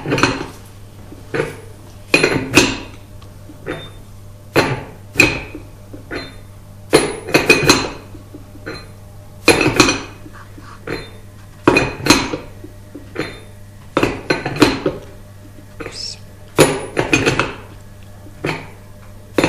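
A 27 mm steel spanner clinking against the pull stroke setter as it is refitted and turned stroke by stroke, winding the head piston back. Sharp metallic clinks, often in pairs, come about once a second.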